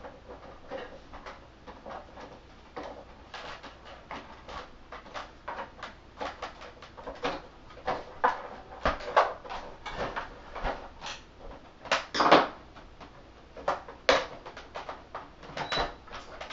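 Plastic housing of a Westinghouse Unplugged cordless vacuum's base being pried and worked apart by hand: irregular clicks, snaps and knocks, with a longer, louder crackle about twelve seconds in.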